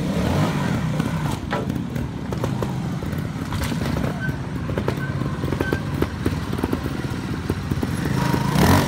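Trials motorcycle engines running at low revs with short throttle blips, with knocks and clatter from tyres and gravel as a bike is hopped and balanced. A louder surge of throttle comes near the end.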